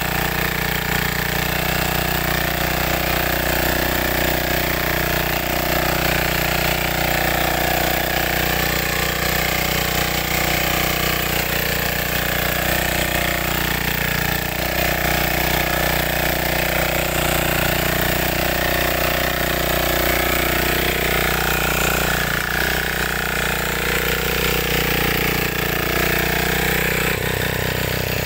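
Power weeder's small engine running steadily under load as its rotary tines till the soil.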